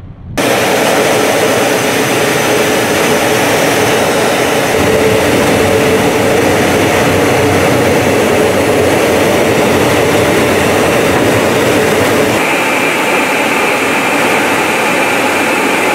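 A twin-engine Sukhoi Flanker-family fighter's jet engines run at takeoff power with afterburners lit, a loud steady jet noise that cuts in suddenly about half a second in. Near the end the deep rumble thins and a steady high whine comes through.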